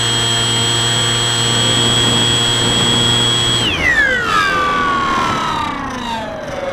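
Electric motor and propeller of a Bixler 2 RC plane: a steady high whine that, a little over halfway in, drops smoothly in pitch as the throttle is pulled back.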